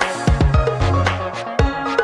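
Electronic background music with a steady kick-drum beat and a bass line.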